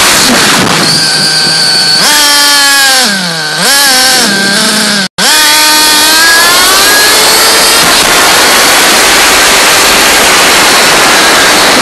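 Small nitro RC car engine running at high revs, its pitch rising and falling as the throttle is worked, over heavy wind rush. The sound drops out for an instant about five seconds in.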